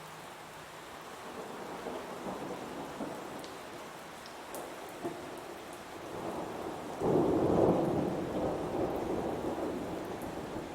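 Heavy rain falling steadily, with thunder rumbling and building, then a loud thunderclap about seven seconds in that rolls away slowly.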